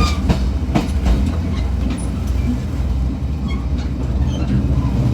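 A diesel multiple-unit train running, heard at the gangway between cars through a large hole. It makes a steady, heavy low rumble of wheels on rail, with several sharp clicks and rattles in the first second.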